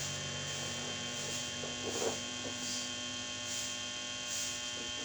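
Steady electrical hum made of many even tones, holding unchanged throughout.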